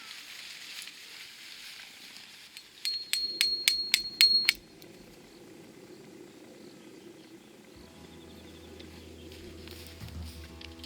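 A quick run of about eight sharp metallic clicks with a high ringing tone under them, lasting about a second and a half. Background music comes in near the end.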